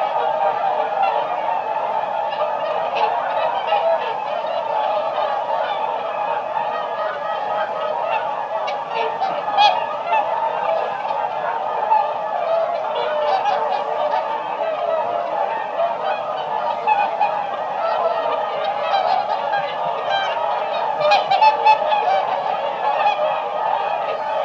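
A flock of swans calling, many overlapping calls forming a continuous chorus.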